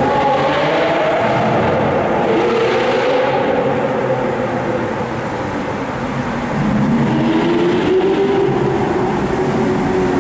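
Supercar engines revving and accelerating inside a road tunnel. The engine note falls in the first second, holds, then climbs again about seven seconds in, over a steady rumble of road and exhaust noise.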